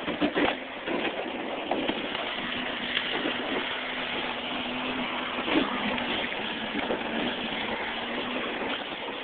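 A motorboat's hull crunching and cracking through sheet ice as the motor runs, a continuous grinding rush with sharp cracks near the start and again a little past halfway.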